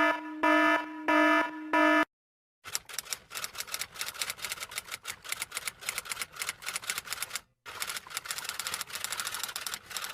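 Four short electronic beeps in quick succession. After a brief pause comes a long run of fast, irregular key clicks like rapid typing, broken by a short gap about three-quarters of the way through.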